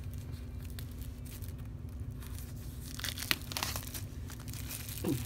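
Plastic shrink-wrap being torn and peeled off a tarot card box, crinkling, with a cluster of sharp crackles about three seconds in.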